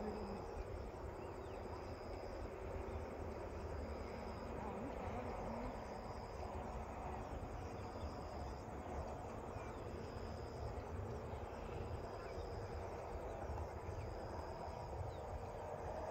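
Insects trilling in high-pitched spells of a second or two each, repeating with short gaps, over a low steady rumble.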